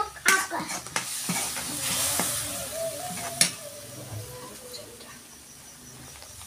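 Metal perforated spatula scraping and knocking against a steel kadhai while stirring a ground spice paste frying in oil, with a sizzle. Several sharp knocks and the loudest sizzle come in the first three and a half seconds, then it settles to a fainter sizzle.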